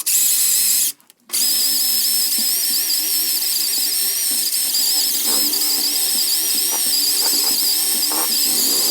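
A plumbing tool running with a steady high hiss, cutting out briefly about a second in and then running on without a break.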